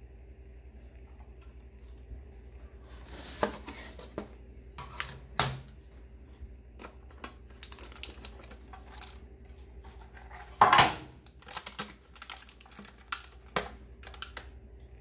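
Hard plastic packaging being handled: scattered clicks, taps and rattles, with the loudest clatter, a short crackle, about ten and a half seconds in.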